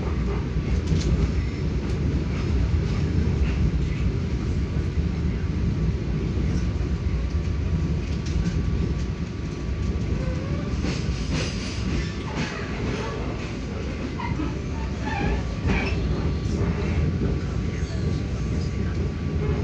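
Passenger train heard from inside a coach while moving slowly through a station yard: a steady low rumble of the running train, with wheel clicks over rail joints and points that come more often in the second half.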